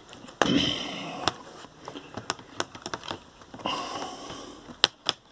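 Plastic laptop battery pack being handled and set against the Gateway MT6460 laptop's battery bay: scattered light plastic clicks and taps, with two stretches of rustling about half a second in and near four seconds in.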